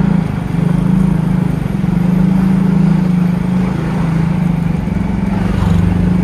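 Yamaha motorcycle's engine running steadily while being ridden, heard from the rider's seat, with its hum dipping briefly a couple of times.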